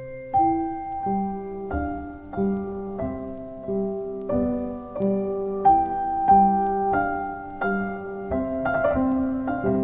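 Background piano music: a slow, even melody of struck notes with chords beneath, a new note about every two-thirds of a second.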